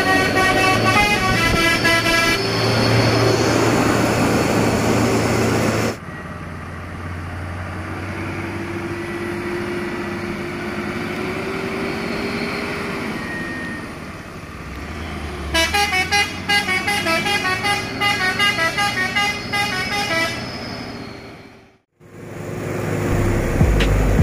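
Hino 500 truck's multi-tone horns sounding a quick run of alternating notes, twice, over the running diesel engine. Between the two horn runs the engine runs on more quietly, with a slowly rising and falling whine, and near the end a deep rumble of the truck comes up loud.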